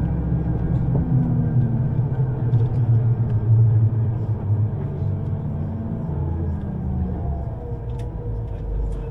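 Vehicle in motion: a steady low rumble with a shifting engine-like hum and a faint tone that slowly changes pitch in the second half.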